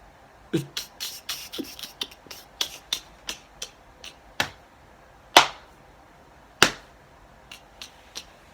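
A run of irregular sharp clicks and knocks, about twenty, with a low thump under the first few; the loudest two come about five and a half and six and a half seconds in.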